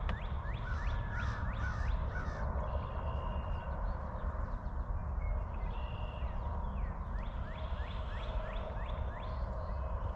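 A songbird calling a run of quick, falling whistled notes, about three a second, at the start and again near the end, over a steady low rumble on the microphone.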